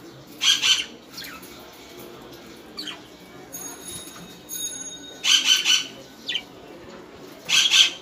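Caged budgerigars calling: three loud, harsh squawks, about half a second in, around five seconds in and near the end, with a few short falling chirps between them.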